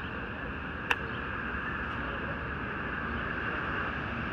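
A single sharp click about a second in, a blitz chess move being made: a piece set down on the stone table or the chess clock button pressed. Under it is steady outdoor city background noise.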